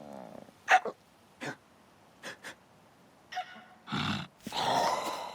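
Cartoon character's nonverbal vocal sound effects: a few short, sharp sounds in the first half, then several longer breathy, grunting bursts that are the loudest part, about four to five seconds in.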